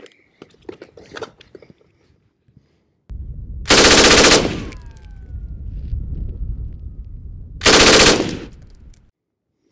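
Chinese Type 56 RPD, a belt-fed 7.62×39 mm light machine gun, firing two short bursts at a high rate of fire, each under a second long and about four seconds apart.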